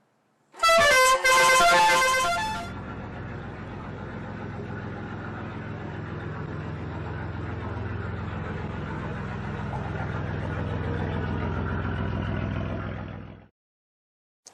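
Indian multi-tone truck horn blaring for about two seconds, stepping rapidly through a run of different notes with a brief break partway. A truck engine then runs steadily, slowly growing louder, until it cuts off abruptly.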